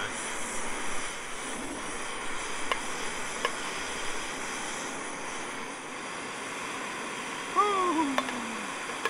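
Portable gas canister stove burning with a steady hiss and roar under an aluminium camping pot. The pot lid clinks lightly on the metal twice about three seconds in, and a short voice sound falls in pitch near the end.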